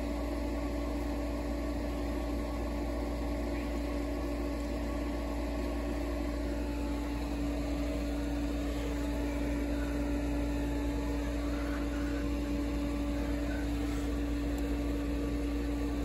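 Pool equipment running with a steady electric-motor hum carrying a constant tone, the pool pump switched on in manual mode feeding the Hayward heat pump.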